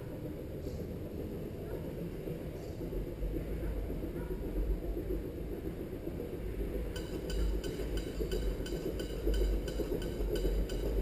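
Low rumble of an approaching narrow-gauge steam train carried through the track, growing from about three seconds in. From about seven seconds the steel rails start ringing in a quick, even ticking rhythm of about three ticks a second.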